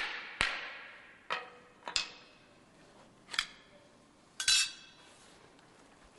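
Mallet blows on a wooden block held against a sheet-metal casting form, two about half a second apart, knocking the form loose from hardened cast resin. A few scattered metallic clinks follow, with a short rattle about four and a half seconds in as the metal form is handled.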